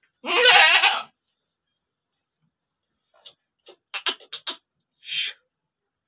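Hyderabadi goat bleating once, a loud wavering call about a second long. A few seconds later come several short sharp clicks, then a brief breathy noise near the end.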